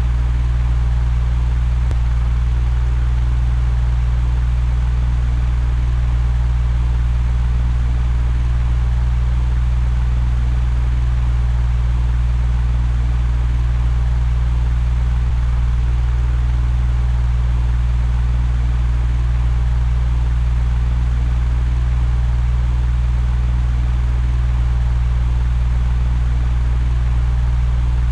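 Electric fan running steadily: a constant low hum with an even rush of air over it.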